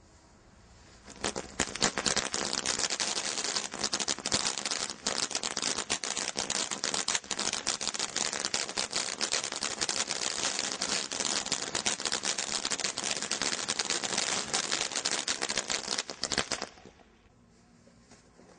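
A ground firework fountain ('Vesuvius') spraying sparks with a dense, rapid crackle and hiss. It starts about a second in, runs for about fifteen seconds, and cuts off suddenly near the end.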